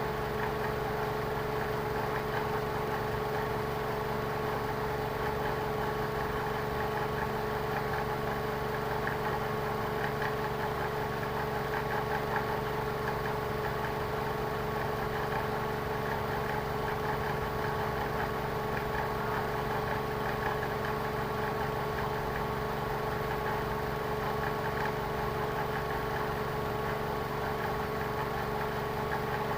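Car engine idling steadily with an even, unchanging hum.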